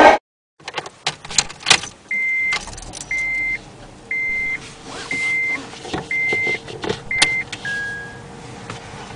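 Car sounds: a few clicks and a jangle of keys, then an electronic warning chime beeping six times, about once a second, ending on one lower beep, over a faint steady hum.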